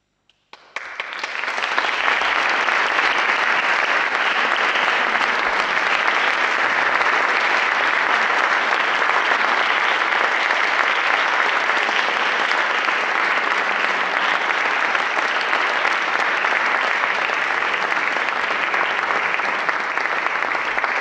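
Audience applauding: after a moment of silence, a few first claps come about half a second in, then swell within a second into steady, dense clapping.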